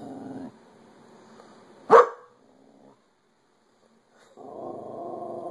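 An agitated dog growling low and steadily, then one sharp, loud bark about two seconds in. After a short silence, the low growling starts again near the end.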